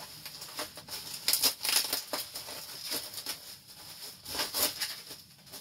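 Plastic bubble wrap crinkling and rustling in irregular crackly bursts as it is pulled off a wrapped horn bell. It is loudest about a second and a half in and again about a second before the end.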